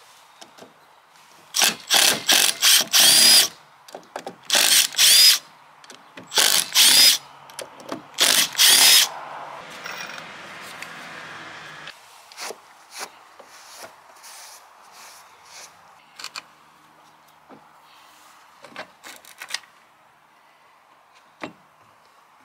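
Cordless drill unscrewing the fasteners of a downrigger base in a series of short runs during the first half. Each run's whine climbs in pitch as it spins up. After that come only a few light clicks and knocks of parts being handled.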